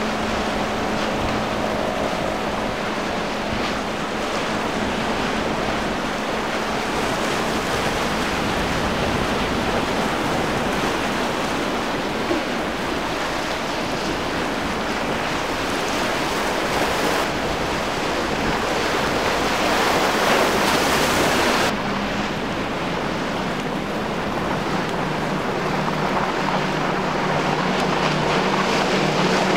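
Steady rush of wind on the microphone and waves washing, with the low drone of boat outboard engines under it at the start and rising again near the end as another outboard-powered boat approaches.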